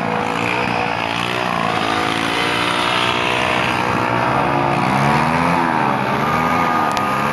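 Several motorcycle engines running and revving together in dense rally traffic, their pitches rising and falling against each other. A steady high tone sounds for about a second near the end.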